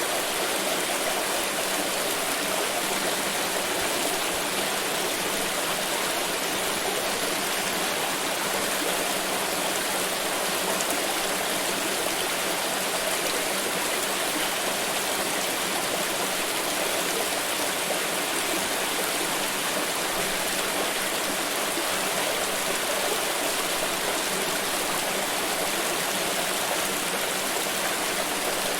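Water flowing steadily in a stream, an even rushing splash with no breaks or changes.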